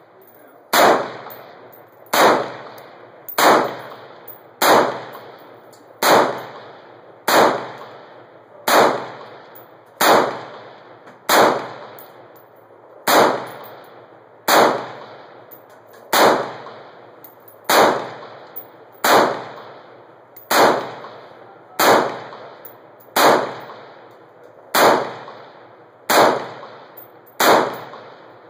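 Tavor 5.56 bullpup rifle firing single shots at a slow, even pace, about one every second and a half. Each sharp report trails off in an echo.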